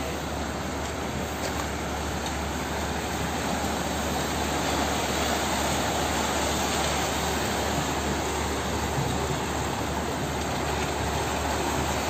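Steady, even engine noise from heavy vehicles and construction machinery running at the work site, with a constant low hum underneath and no distinct knocks or revs.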